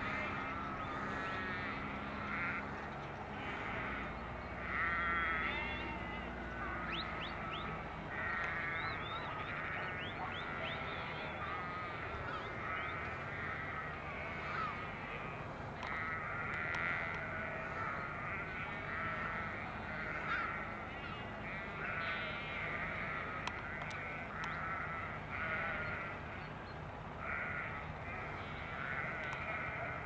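A flock of sheep bleating continuously, many overlapping calls, over a steady low hum of farm vehicle engines.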